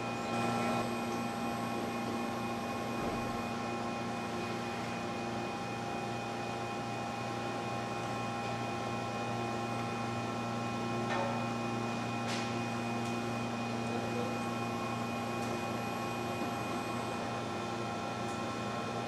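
Toyoda GL6 CNC cylindrical grinding cell running: a steady machine hum of several fixed tones, broken by a few short clicks about a second in and again around 11 and 12 seconds in.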